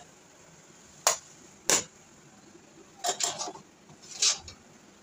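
A metal spoon clinking and scraping against the kadhai and a steel plate as halwa is served out: single sharp clinks about one and almost two seconds in, a quick cluster of several around three seconds, and one more past four seconds.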